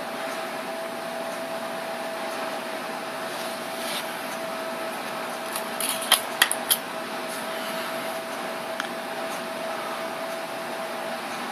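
A steady fan-like hum with one faint steady tone running through it, broken by a few quick clicks about six seconds in.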